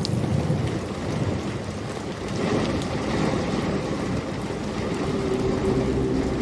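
Steady heavy rain with low rolling thunder. A soft held tone comes in under it about five seconds in.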